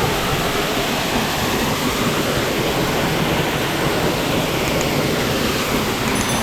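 Waterfall pouring heavily, heard up close as a steady, loud rush of water; the falls are running high after overnight rain.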